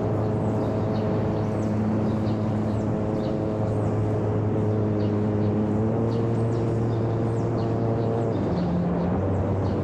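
Electric motor and propeller of a homemade RC seaplane running in flight: a steady drone whose pitch steps up and down a few times.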